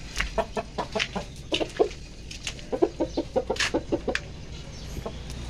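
Aseel fighting rooster clucking in quick runs of short clucks, several a second, with brief pauses between the runs.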